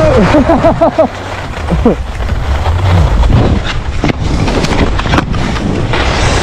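Wind buffeting the microphone and skis scraping over packed snow on a fast downhill run, a steady rumbling rush with short scrapes here and there. A voice calls out briefly in the first second.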